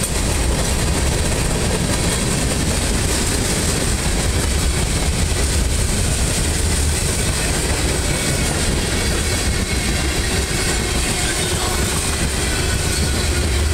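Freight cars of a mixed freight train (covered hoppers, gondolas, boxcars) rolling past close by: a steady, loud rumble of steel wheels on the rails, without let-up.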